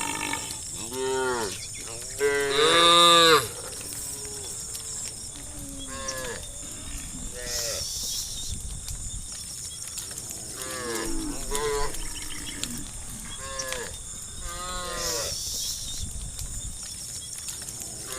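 A herd of cows mooing, one call after another, some overlapping. The loudest is a long moo about two to three seconds in.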